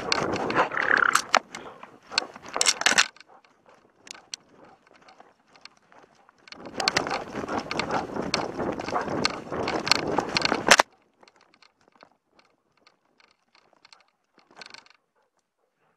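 Camera strapped to a running dog's harness, scraping, rattling and jangling against the straps and brushing through undergrowth. It comes in two loud spells, stopping suddenly about eleven seconds in, with quiet stretches between and after.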